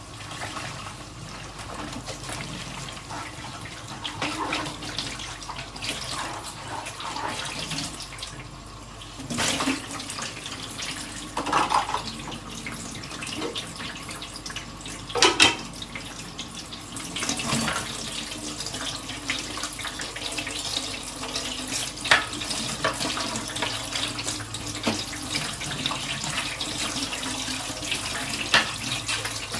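Dishes being washed under a running kitchen tap: steady running water with clinks and knocks of dishes handled in the sink, the loudest a few sharp clinks scattered through.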